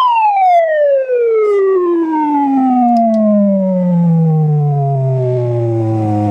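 Frequency sweep from a cassette test tape played back through a Sharp GF-575 boombox's deck and speaker. A single tone with overtones glides steadily downward from a mid-pitched whistle to a low hum, slowing as it falls and levelling off near the end.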